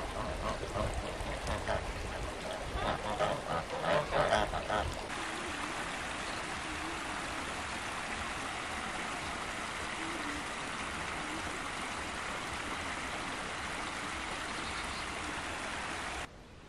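Domestic geese honking over running stream water, the calls loudest about four seconds in. After about five seconds the geese stop and only the steady rush of the stream or river is heard, which cuts off suddenly near the end.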